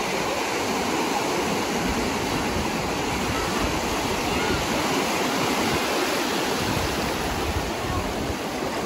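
Sea surf breaking and foaming water washing through the shallows, a steady rush.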